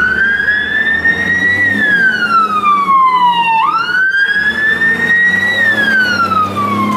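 Fire engine siren wailing: a slow tone that climbs, then sinks over about two seconds, snaps back up about halfway through and sinks again, over the low running of the truck's engine.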